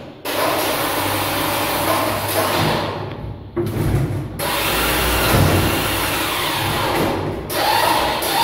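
Electric motor of a Stanley PowerMate stair-climbing hand truck whirring under the load of a heavy vending machine, in two runs broken by short pauses about a third and near the end, with a low thud about halfway through.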